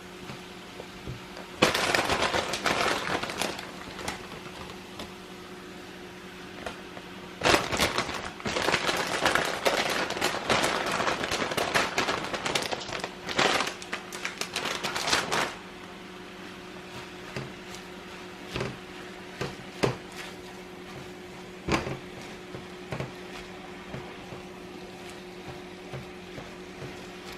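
Rinsed baby spinach crackling and rustling in a pot of hot oil with onion and garlic as it is stirred, in two loud spells, the second lasting about eight seconds, then a few scattered clicks. A steady low hum runs underneath.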